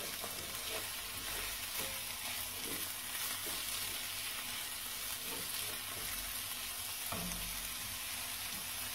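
Blanched radicchio and onion frying in oil in a pan: a steady sizzle, with a few faint clicks of stirring.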